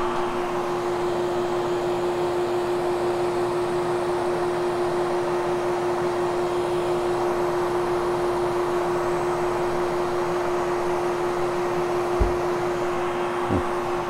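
Hoover Commercial upright vacuum cleaner running steadily over polyester carpet, its motor whine holding one pitch throughout. Two short knocks near the end.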